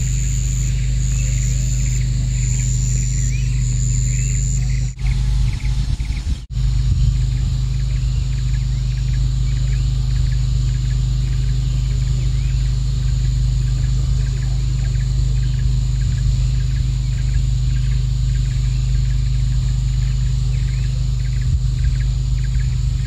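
Steady low rumble of a vehicle on the move, with a faint chirp repeating about once or twice a second above it. The sound drops out briefly about five seconds in.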